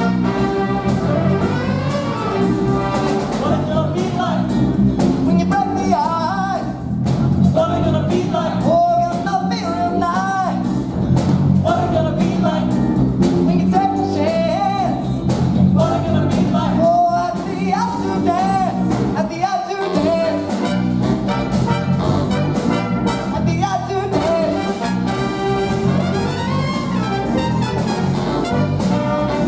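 A big band playing live, with saxophones, trumpets and trombones over guitars and a drum kit, and a melody line bending and sliding over the band.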